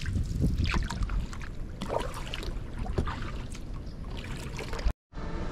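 Kayak paddle strokes splashing in river water, with wind rumbling on the microphone. The sound cuts off abruptly near the end.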